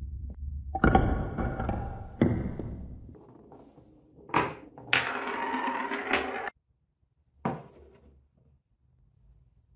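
Glass marble rolling through a Cuboro beechwood marble run: a low rumble through the tunnel blocks with two sharp clacks as it drops onto the wood, then a louder rolling rush along an open channel that stops suddenly. A single wooden knock follows near the end.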